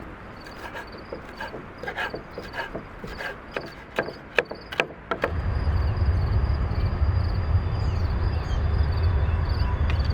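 Knife chopping on a wooden cutting board: a run of irregular sharp knocks for about the first five seconds. Then a steady low rumble takes over, and a faint high chirp repeats a few times a second throughout.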